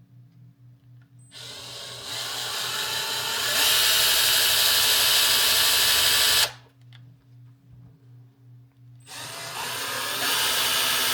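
Power drill fitted with a very fine bit, drilling in two runs. The first lasts about five seconds, gets louder partway through and stops abruptly. The second starts near the end.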